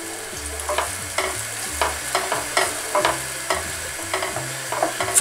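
Wooden spoon stirring tomato sauce in a pot, with irregular soft scrapes and knocks against the pot over the steady sizzle of the sauce cooking in hot oil.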